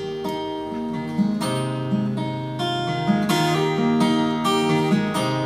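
Steel-string acoustic guitar played fingerstyle, with no singing: picked melody notes ringing over sustained bass notes.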